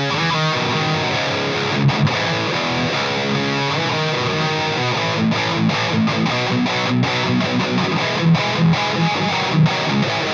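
Electric guitar played through an EVH 5150 III LBX amp head, with the mids turned up full. The tone is heavily distorted and the riffing is rhythmic and chugging, with a few short, sharp stops.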